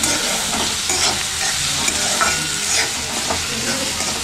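Chopped onions sizzling in hot oil in a steel kadhai while being stirred, the spoon scraping the pan in repeated strokes about twice a second.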